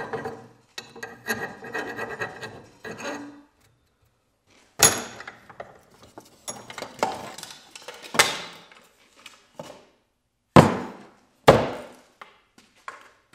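Hand file rasping in repeated strokes across the top of an axe head's eye, dressing the handle end and wedge flush. After a short pause come several sharp wooden knocks and thuds as the axe is handled and laid on a wooden workbench.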